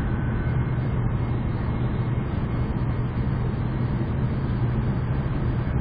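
Steady low rumble and rush of an N700 series Shinkansen bullet train running at speed, heard from inside the passenger cabin, with a constant low hum under it.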